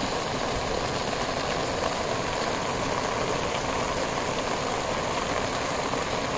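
Hail falling steadily on and around an RV: a dense, even patter of ice.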